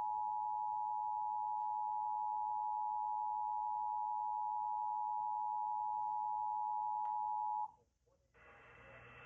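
Emergency Alert System two-tone attention signal, 853 Hz and 960 Hz sounding together, which announces an emergency alert or, here, the required monthly test. One steady held tone stops abruptly about eight seconds in, followed by a faint hiss.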